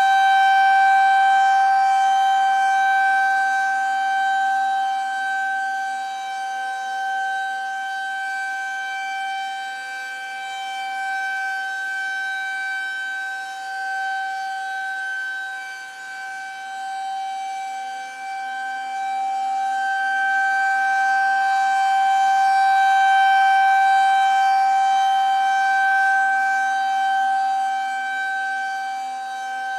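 Federal Signal 2001-130 rotating electromechanical outdoor warning siren sounding a steady single tone for a tornado drill. The pitch holds constant while the loudness swells and fades as the rotating head sweeps past.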